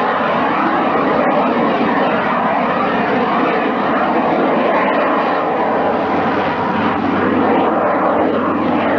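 Steady, loud engine noise of a BD-10 light jet flying around the airfield.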